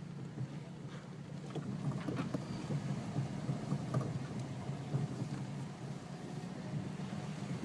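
Car driving slowly, its engine and tyre noise heard from inside the cabin as a steady low hum, with a few light clicks and rattles.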